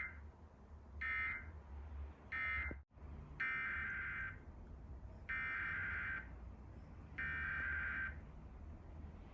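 Emergency Alert System SAME data bursts: the harsh two-pitch digital screech of the encoder. First come three short end-of-message bursts, then a sudden dropout about three seconds in, then three longer header bursts that open the next test alert.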